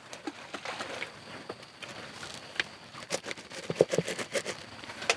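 Irregular light clicks and soft knocks from fishing tackle and a bait bucket being handled, with a cluster of louder knocks in the second half.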